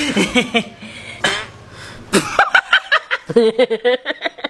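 People laughing: a man laughing at first, then a woman's laughter in quick repeated bursts over the last second or so.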